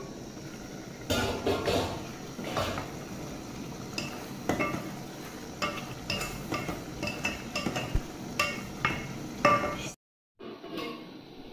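A wooden spoon stirring a thick stew in an aluminium pot, knocking and scraping against the metal sides in irregular strokes with a short ring after each knock.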